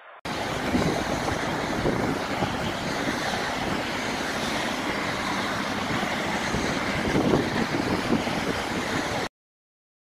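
Loud, steady outdoor rushing noise with no distinct calls or strokes in it. It starts abruptly at a cut just after the beginning and cuts off dead about nine seconds in.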